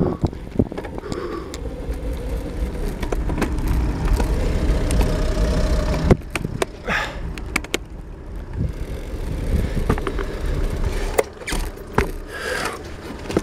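Road bike rolling on tarmac: low wind rumble on the bike-mounted camera's microphone and tyre noise, dropping noticeably about six seconds in as the bike slows, with scattered sharp clicks and knocks.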